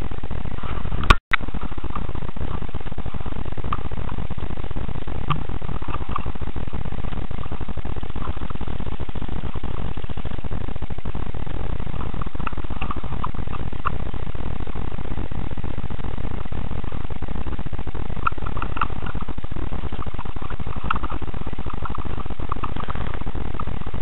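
Steady low rumble and hiss from a cheap action camera's poor microphone, with faint scattered crackles. There is a sharp click and a momentary dropout about a second in.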